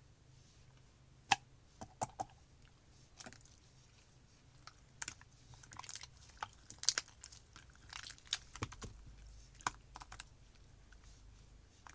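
Slime being squeezed and pressed by hand, giving irregular sticky clicks and small crackly pops, thickest in the middle.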